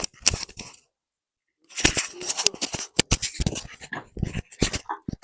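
Car engine being cranked over for a start, giving a run of irregular sharp knocks and clatter that goes on for about three seconds, after a brief cluster of clicks at the start.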